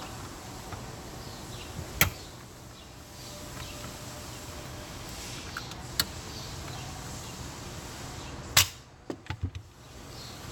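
Sharp clicks and taps of small parts and tools being handled during hand work on a car: three single clicks a few seconds apart, the last the loudest, then a quick run of smaller clicks, over a steady background hiss.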